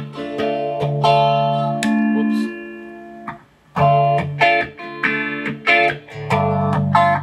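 Electric guitar played through an Electro-Harmonix Small Stone phaser on its own: a series of chords strummed and left to ring, with a short break about three seconds in. The phasing is subtle.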